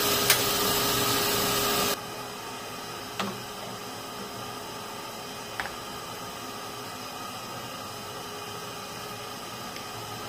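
Steady hiss of a pot of broth with meatballs heating on a gas stove, not yet at a rolling boil. The hiss is louder with a faint hum for the first two seconds, then drops suddenly to a quieter, even hiss with a couple of faint clicks.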